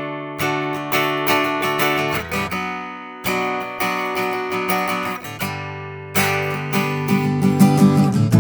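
Taylor GS Mini-e Mahogany acoustic guitar, with a solid mahogany top and sapele back and sides, being played with picked and strummed chords that ring out. One chord is left to fade before a new one is struck about three seconds in, and the strumming gets quicker near the end.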